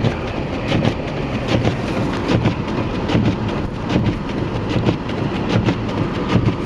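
Road noise inside an SUV driving over a snow-covered street: tyres rumbling over packed snow, with many irregular clicks and knocks.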